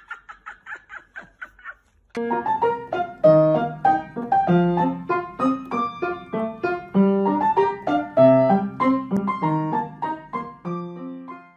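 Piano music playing a quick, bouncy melody, starting about two seconds in. Before it, faint rapid repeated sounds fade out.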